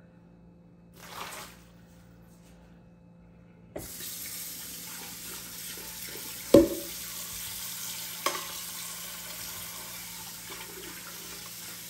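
Kitchen tap turned on about four seconds in and running steadily into a sink, with a loud knock about two and a half seconds later and a lighter one near eight seconds.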